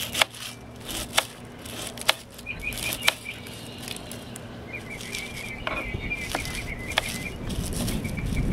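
Small knife chopping a garlic clove on a plastic cutting board: sharp single knocks of the blade on the board, about a second apart, then a few more near the end. A bird chirps in quick runs of notes in the background.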